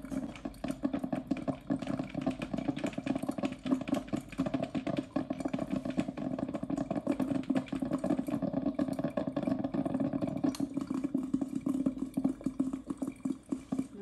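Electric drip coffee maker gurgling and sputtering as it brews, a continuous rough bubbling with rapid pops; it is late in its brew cycle.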